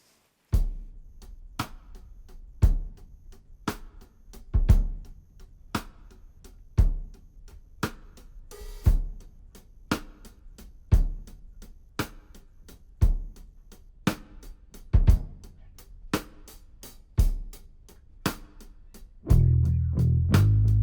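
Background music: a drum kit plays a steady beat of about one kick and snare hit a second, and bass and guitar come in near the end.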